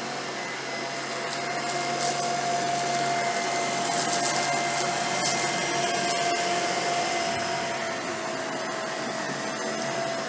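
Tineco PURE ONE S11 cordless stick vacuum running steadily on carpet, a constant motor whine over airflow noise. Scattered ticks and crackles come from chili flakes being sucked up along the baseboard.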